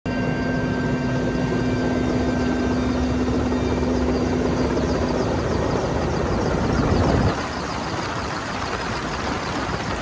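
Mi-8 helicopter's turbine engines and rotor running, heard from the open cabin door: a loud, dense, steady rush with a hum. About seven seconds in, the low rumble drops away and the sound thins.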